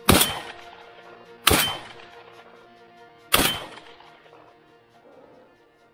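Three shots from an MP-155 semi-automatic shotgun, fired in quick succession less than two seconds apart, each a sharp crack with an echoing tail.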